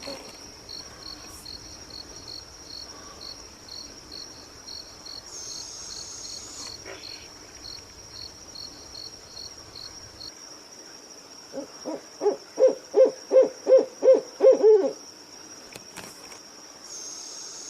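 An owl giving a quick run of about ten hoots, about three a second, growing louder, starting past the middle. Insects call throughout: a steady high trill and a pulsed chirp that stops about ten seconds in.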